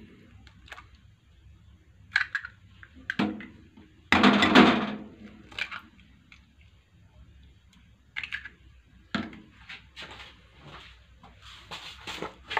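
Two eggs being cracked by hand and broken into a ceramic bowl of fish fillets: scattered short taps and clicks of shell, with a louder clatter about four seconds in.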